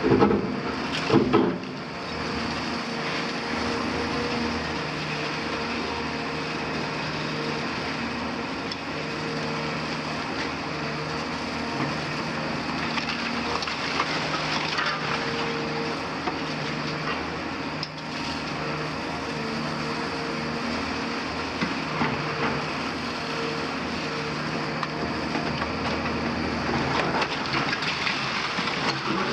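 Caterpillar 340F excavator's Cat C9.3 ACERT diesel engine running steadily under hydraulic load while its bucket breaks up brick walls, with crashing and crumbling masonry and rubble. Two loud crashes come right at the start, and more crumbling and falling debris about halfway through and near the end.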